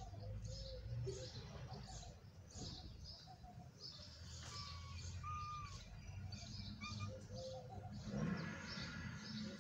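Small birds chirping over and over, about two short high chirps a second, with a few clearer, lower whistled notes near the middle, over a steady low rumble.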